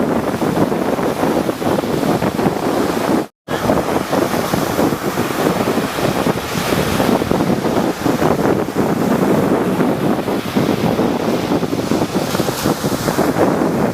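Rough sea surf breaking continuously, with wind buffeting the microphone. The sound cuts out abruptly for a split second about a quarter of the way in.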